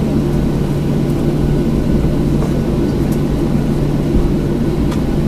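Cabin noise of a Boeing 737-900 taxiing, its CFM56-7B jet engines idling with a steady low hum and rumble.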